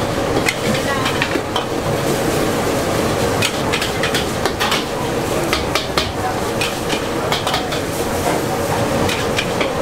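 Metal spatula scraping and knocking irregularly against a large steel wok as noodles and egg are stir-fried, over a steady sizzle of frying.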